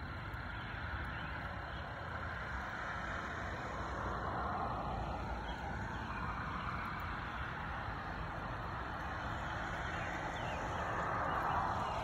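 Steady outdoor background noise of distant road traffic, swelling twice: about four seconds in and again near the end.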